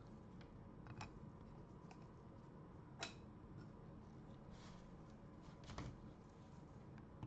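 Faint, sparse clicks and taps of trading cards and rigid plastic toploaders being handled as cards are slid into them, a few sharp ones about a second in, three seconds in, and a small cluster between four and six seconds.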